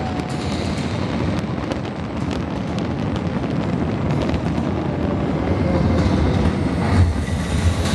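Fireworks display: a steady heavy rumble thick with small crackling pops, with a deeper rumble building in the last couple of seconds.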